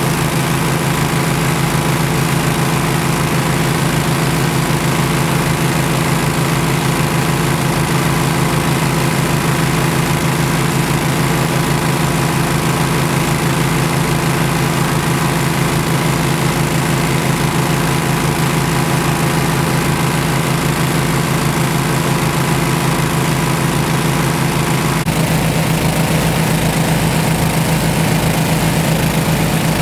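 Boat engine running steadily with an even low throb; its tone shifts slightly about 25 seconds in.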